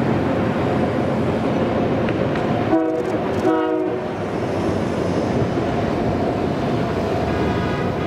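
Steam whistle of Canadian Pacific 2816, a 4-6-4 Hudson steam locomotive, sounding two short chime blasts about three seconds in and a third beginning near the end. Under it runs the steady rumble of the train crossing the river bridge.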